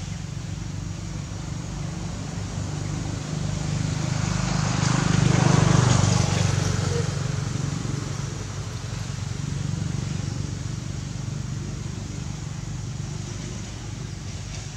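Motor vehicle engine running with a steady low hum. It grows louder to a peak about six seconds in, then fades, as it passes by.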